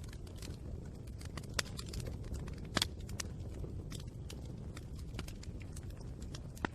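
Wood fire burning with irregular crackles and sharp pops over a steady low rumble of flame, the loudest pop a little under 3 seconds in.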